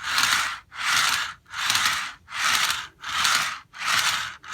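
Metal wheels of an O27 Lionel caboose rolling fast on Lionel FasTrack: a loud, rushing rolling noise in about six passes with brief breaks between. It is the loudest of the three track types tried.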